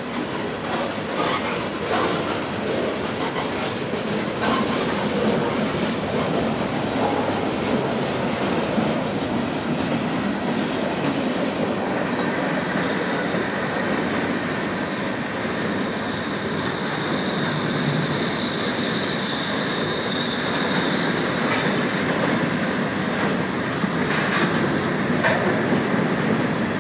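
Norfolk Southern freight train of tank cars and covered hoppers rolling past, its steel wheels clacking over rail joints. A thin, high wheel squeal rises over the rumble for several seconds in the middle.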